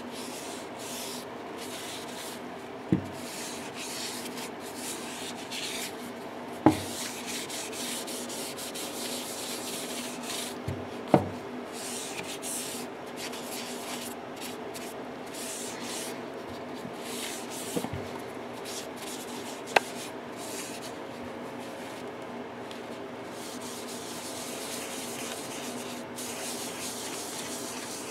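Rag rubbing an oil finish into a figured-wood guitar fretboard, a steady scratchy back-and-forth rubbing, with a few sharp knocks scattered through.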